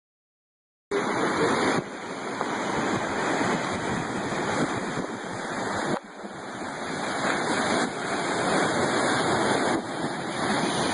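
Steady roar of breaking ocean surf. It sets in after a moment of silence and jumps abruptly in level a few times where the footage is cut.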